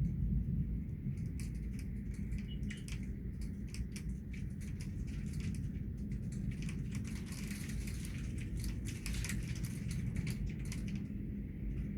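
Rain pattering: many irregular sharp ticks of drops striking a hard surface, thickest a little past the middle, over a steady low rumble.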